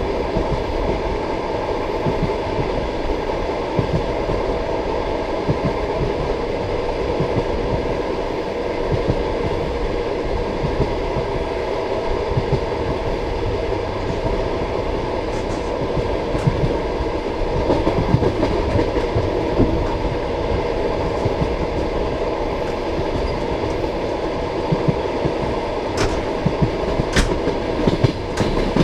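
Passenger train carriage rolling along the track: a steady rumble of wheels on rail with an uneven deep clatter of wheels over the rail joints, and two sharp clicks near the end.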